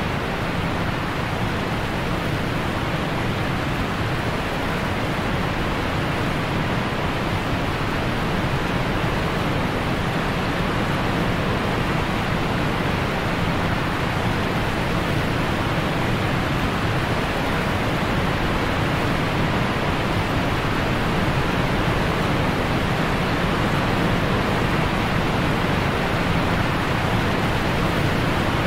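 A steady, even rushing noise with no pitch, rhythm or breaks, holding at one level throughout.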